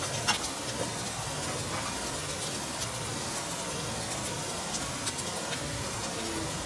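Wild mushrooms cooking in butter and cream in a frying pan, giving a steady sizzle. A single sharp click about a third of a second in, the chopsticks against the pan.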